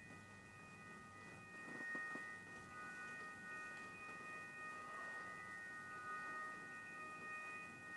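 Faint eerie background music: a chord of high ringing tones held steadily, with a couple of soft knocks about two seconds in.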